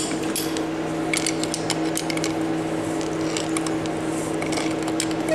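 Slip-joint pliers clicking and scraping against the steel packing nut of a Western snow plow's hydraulic ram as it is tightened, a few scattered metal ticks, over a steady low background hum.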